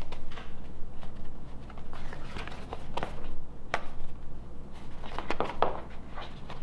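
Stiff sheet of 1/32-inch gasket material being handled and flexed, rustling and clicking irregularly as a partly cut gasket is pressed out of it, with a sharper snap about halfway through.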